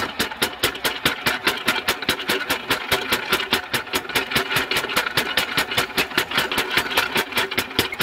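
Mechanical power hammer pounding a hot-cut tool into a red-hot steel bar in rapid, steady blows, about six a second, each with a metallic clank: the bar is being cut through.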